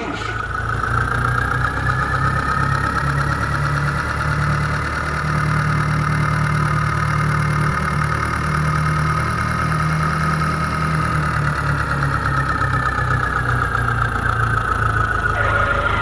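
Tractor engine running steadily: a low chugging beat under a high steady whine that sinks slightly in pitch toward the end.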